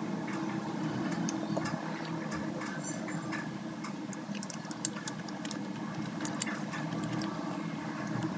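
Light scattered clicks and crackles as pieces of crisp-skinned roast pork belly are handled and set on a plate, over a steady low hum.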